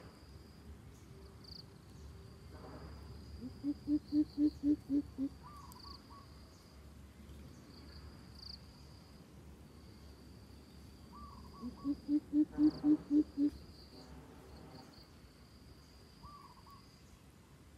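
Greater coucal calling: two runs of deep, hooting notes, about seven or eight in a row at roughly four a second, the second run about eight seconds after the first. A high insect buzz comes and goes underneath.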